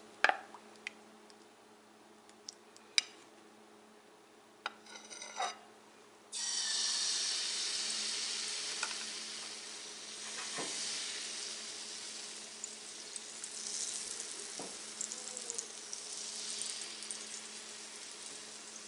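A metal ladle clinks a few times against a bowl as egg batter is stirred. About six seconds in, the batter hits hot oil in a non-stick frying pan and starts sizzling suddenly, the sizzle slowly fading as the egg paratha begins to set.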